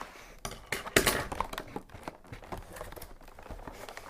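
Cardboard toy packaging being worked open by hand: irregular scrapes, crinkles and taps, the loudest about a second in.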